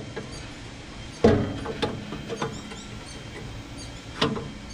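Metal knocks and clicks as a burner tube is handled and seated in a gas grill's firebox. There is a sharp clank about a second in and another with a brief ring near the end, with lighter taps and faint squeaks between.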